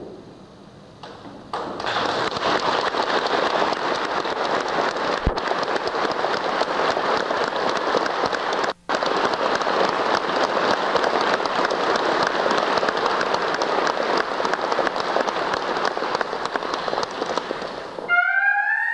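Audience applauding steadily, starting about a second and a half in, with a brief dropout about nine seconds in, then cutting off abruptly near the end.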